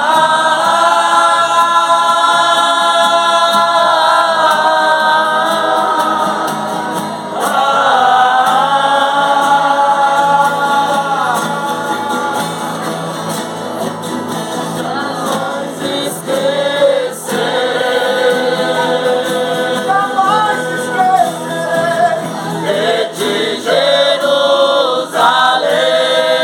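Music with voices singing together in long held notes that change every few seconds.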